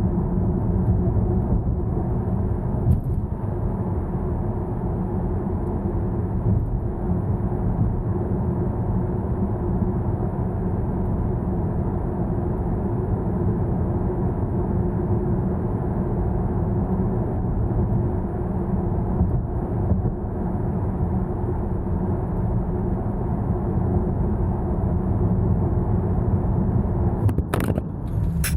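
Steady low road and tyre rumble with wind noise inside the cabin of a 2021 Volvo V90 cruising at highway speed in all-electric 'Pure' mode, so no engine is heard. Near the end come a few brief rustling scrapes.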